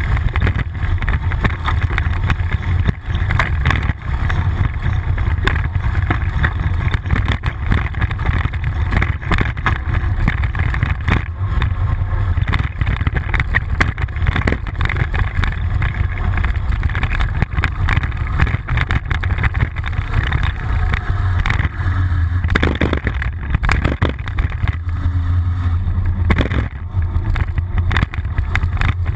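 Bicycle riding noise picked up by a GoPro mounted low on the bike's frame: a steady low rumble of wind and road vibration with a dense rattle, and a few sharper knocks near the end.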